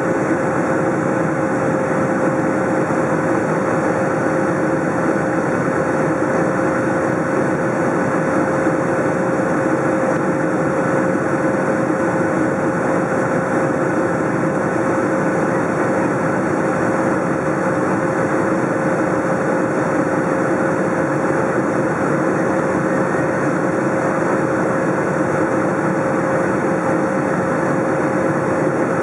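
Steady in-flight cabin noise of a Boeing 757: jet engine and airflow noise heard from a window seat, with a constant hum-like tone running through it.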